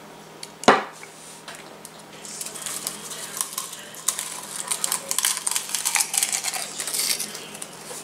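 A single sharp knock just under a second in, then a big mouthful of popcorn being chewed close up: a dense run of crisp, uneven crunching crackles.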